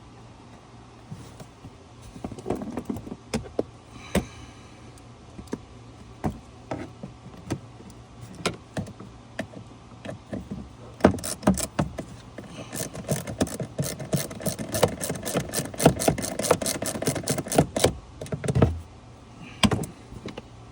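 Hand tools clicking and knocking as screws are fastened back into a dashboard HVAC actuator. Scattered single clicks at first, then a long run of rapid, even ratcheting clicks, about five a second, that stops near the end.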